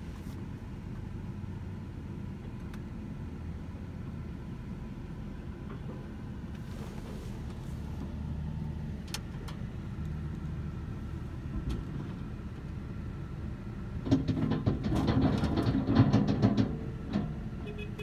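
A skid steer's engine running close by, heard from inside a truck cab, then about fourteen seconds in a loud clattering rush lasting some three seconds as a bucket load of mulch is dumped onto the truck.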